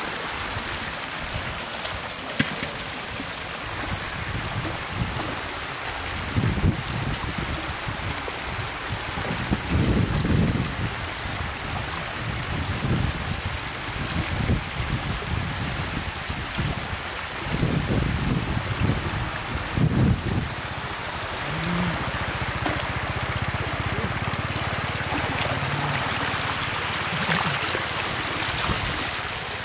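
Shallow floodwater running over the ground, a steady rushing, with louder low sloshing a few times as a wicker basket is worked through it.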